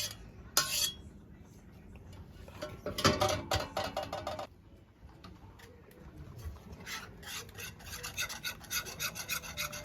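A utensil scraping against a container in repeated short strokes, scraping out thick mango mixture: a burst of strokes a few seconds in, a short pause, then a quicker run of several strokes a second near the end.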